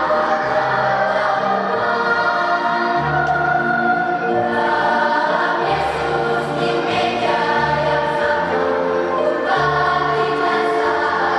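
Children's choir singing a song in several voices over an instrumental accompaniment, whose low bass notes change every second or two.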